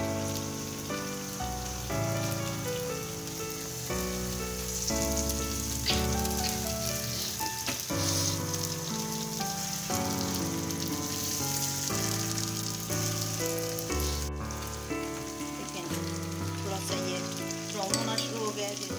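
Chicken pieces sizzling as they go into hot oil with browned onions and are stirred in the pan, a steady frying hiss that is strongest a few seconds in. Background music with changing held notes plays throughout.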